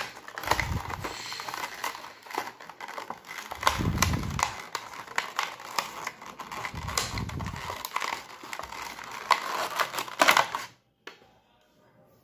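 Clear plastic blister packaging crinkling and crackling as it is pulled open and handled, with a few dull bumps. It stops about eleven seconds in.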